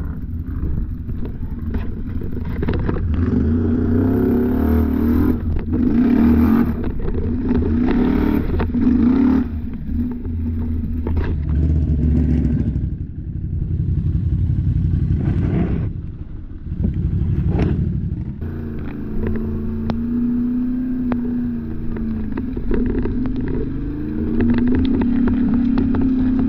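ATV engine revving in repeated surges, its pitch rising and falling as the throttle is worked, with rougher clattery noise over it in the first half and steadier running near the end.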